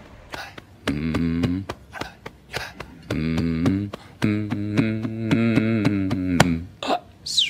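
Channel intro jingle: electronic music with many sharp percussive hits and held, bass-heavy synth tones in three stretches, ending in a quick downward sweep.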